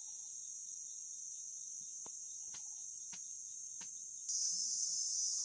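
Steady high-pitched insect chorus, growing louder about four seconds in, with a few faint clicks.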